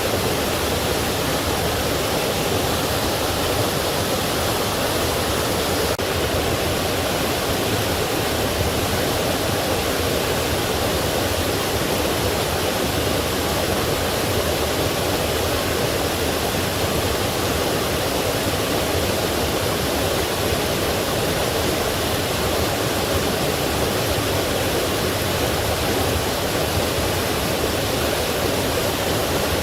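Forest stream with small waterfalls, water rushing and splashing over rocks in a steady, unbroken wash.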